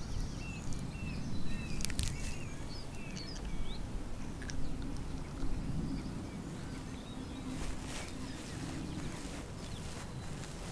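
Outdoor marsh ambience: a steady low rumble, with short high bird chirps through the first few seconds and scattered soft ticks.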